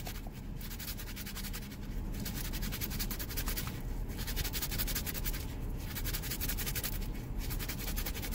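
Coarse 80-grit sandpaper sanding a hardened super-glue filler repair on a hard plastic e-brake handle: a continuous scratchy rasp, broken by short pauses about every one and a half to two seconds.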